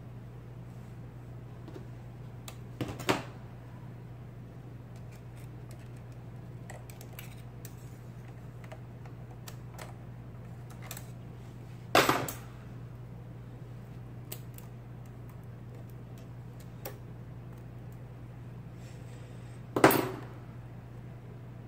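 IBM Selectric typeball typewriter working under test: three loud mechanical clacks, about eight to nine seconds apart, with a few faint clicks between them, over a steady low hum.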